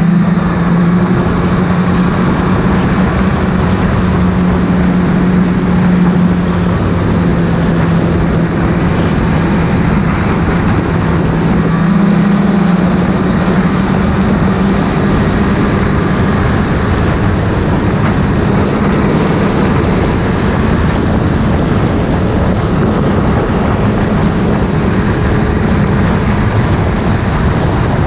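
Snowmobile engine running at a steady speed, its tone holding nearly level with small rises and dips, over a steady rush of noise.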